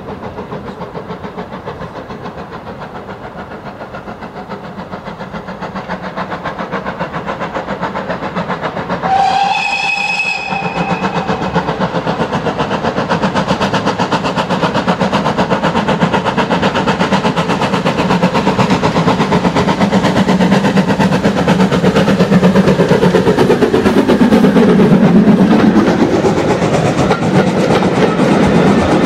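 Steam locomotive approaching with a train, growing steadily louder, and giving one short whistle blast about nine seconds in. Near the end it passes close by and the coaches roll past, with wheels clicking over the rail joints.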